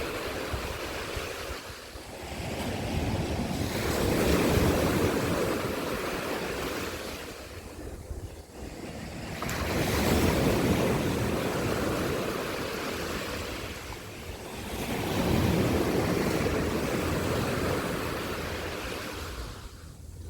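Sea waves breaking and washing onto a beach: three swells of surf about five to six seconds apart, each building up and then fading slowly.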